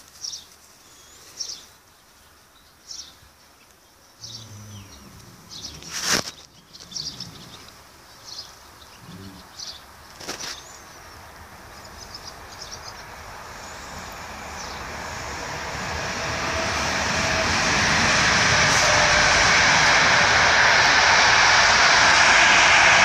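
A rushing engine drone swells over about six seconds in the second half and then holds loud and steady. Before it come short high chirps and a few sharp knocks.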